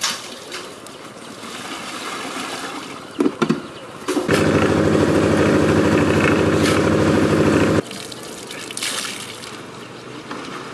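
Engine of a drum concrete mixer running loud and steady, coming in abruptly about four seconds in and cutting off after about three and a half seconds. Before and after it, softer splashing and trickling of water from clothes being washed in buckets, with a couple of sharp knocks just before the engine.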